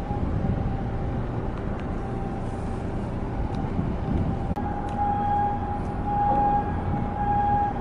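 Outdoor harbour ambience: an uneven low rumble with a steady high-pitched mechanical whine over it, which swells and fades in pulses in the second half.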